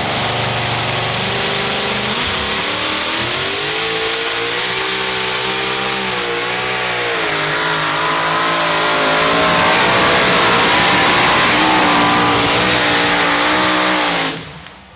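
Two-wheel-drive pulling truck's engine at full throttle under the load of a pulling sled, its revs surging up and down and growing louder toward the end. The engine sound drops away suddenly just before the end.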